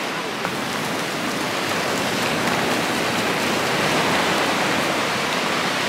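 Small waves breaking and washing up over shallow water on a sandy beach: a steady hiss of surf and foam.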